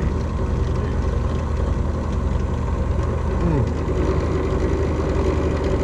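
Power drill running steadily under load, boring through the metal hub of a steering wheel.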